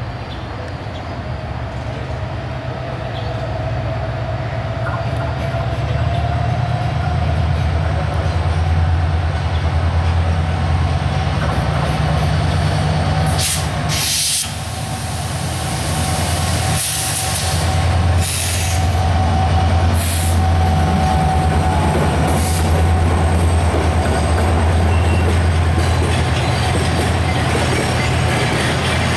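Diesel locomotive hauling a container freight train past at low speed, its engine a deep steady drone that grows louder as it approaches, then the wagons rolling by. Several brief high-pitched squeals from the wheels come in the middle.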